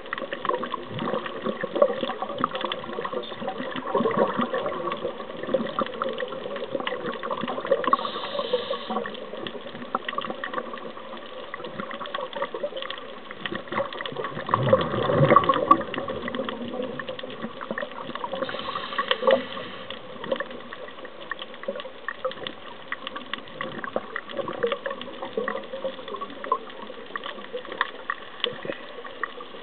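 Underwater sound picked up through a camera housing: a steady crackle, with a louder rush of bubbles about halfway through.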